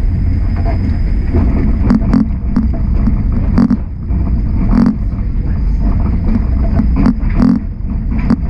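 Streetcar rolling through a track intersection: a steady low rumble broken by irregular clacks and thumps as the steel wheels cross rail joints and crossing trackwork, about a dozen from two seconds in. A faint steady high whine runs underneath.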